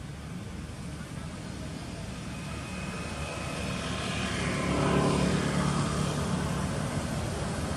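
A passing engine, growing steadily louder to a peak about five seconds in, then easing off slightly.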